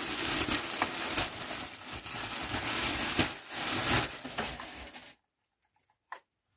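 Plastic wrapping being torn open and crumpled by hand: dense crinkling and ripping with sharp crackles. It stops abruptly about five seconds in, and one short click follows near the end.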